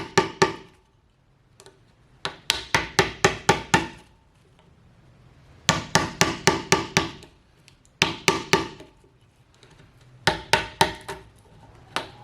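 Hammer driving a chisel into a wooden timber, chopping out a mortise between drilled holes: quick runs of sharp, ringing blows, about six a second, in short bursts with brief pauses between.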